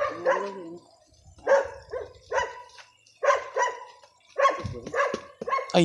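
A dog barking repeatedly, in a string of short barks in quick succession.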